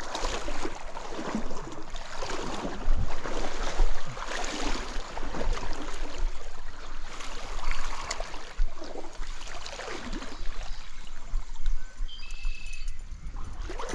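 Wading through a stream in waders: water sloshes and splashes with each stride, in repeated surges about once a second.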